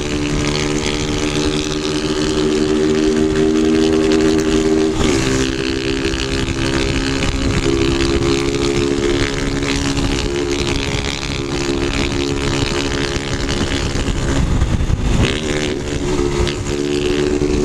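Small motorcycles with loud open 'de lata' exhausts running at steady throttle, a loud, even engine note; the pitch drops and climbs back about five seconds in and again near fifteen seconds, as with a throttle change or gear shift.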